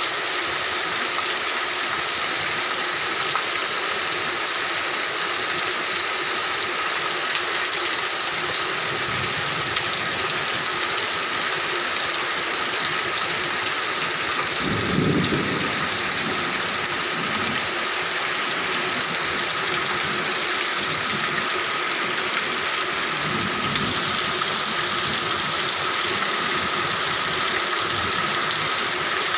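Steady heavy rain, with a low rumble of thunder about halfway through and fainter rumbles before and after it.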